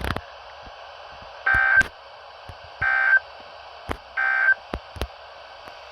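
NOAA Weather Radio SAME end-of-message code: three short digital data bursts a little over a second apart, marking the end of the weekly alert test. Faint radio hiss with a few static clicks runs between the bursts.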